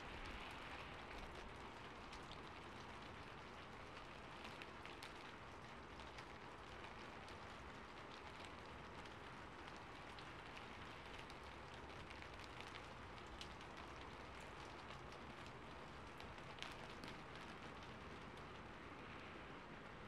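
Rain falling on a rooftop: a faint, steady hiss of rain with many scattered sharp drop ticks.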